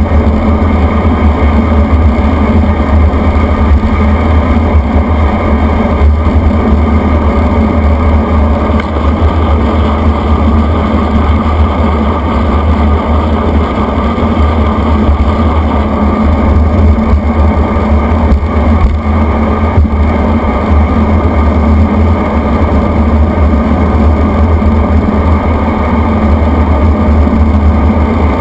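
Loud, steady wind rush on a bike-mounted camera's microphone from the air flowing past a road bike descending at speed, heaviest in the low rumble.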